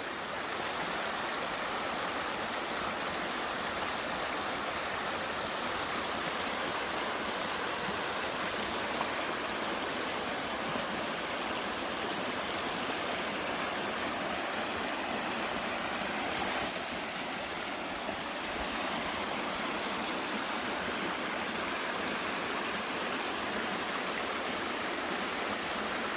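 Steady, even rushing noise, like running water, with a brief louder hiss about sixteen seconds in.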